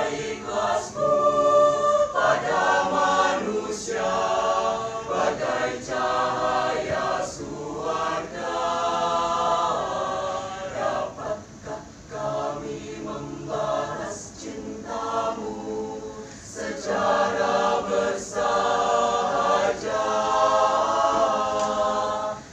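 Mixed choir of men and women singing together in sung phrases, dipping briefly a little before the middle and again about two-thirds of the way through.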